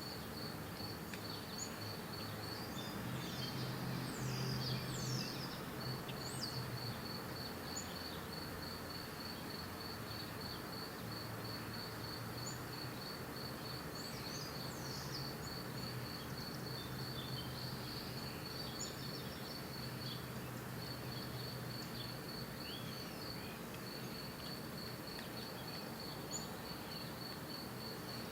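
An insect chirping in a steady, even high-pitched pulse, with a few short gaps, while birds call now and then with quick sweeping chirps. The chirps are busiest about three to seven seconds in and again midway. A low hum and a steady outdoor hiss run underneath.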